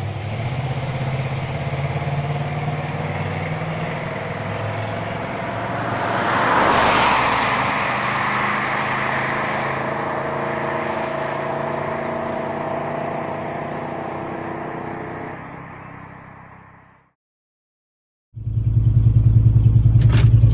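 A 5.9-litre (360) V8 car engine running and revving, with a surge of noise about six to seven seconds in. The sound then fades away, and after a second of silence the engine is heard idling louder with an even, lumpy pulse.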